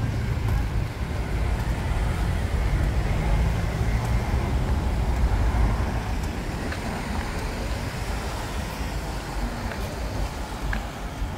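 Road traffic: cars passing close by on a multi-lane city road, a steady rumble of engines and tyres that eases a little after the middle.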